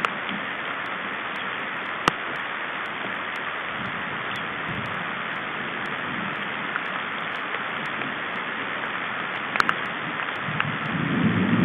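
Steady rain falling on the forest canopy and nest, with a few sharp drop hits close to the microphone. Near the end a low rumble of thunder builds.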